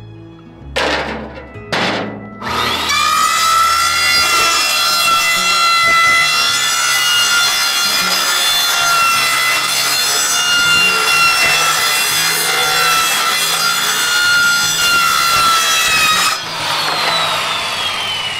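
Two sharp knocks, then a corded circular saw starts and cuts steadily through a plastic storage-shelf panel with a loud, even whine for about fourteen seconds. Near the end the cut finishes and the blade spins down with a falling whine.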